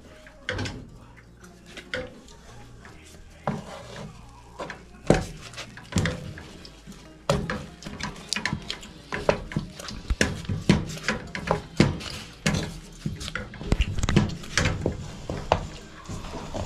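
Wooden cooking stick knocking and scraping against a metal pot as thick maize-meal ugali is stirred and pressed. The knocks come irregularly, sparse at first, then quick and frequent from about five seconds in.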